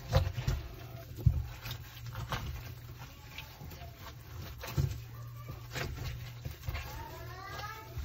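A wet microfiber cloth wiping and scrubbing inside a dishwasher's plastic filter housing, with scattered knocks and clicks of hand and cloth against the plastic. Near the end a high, wavering call rises in the background.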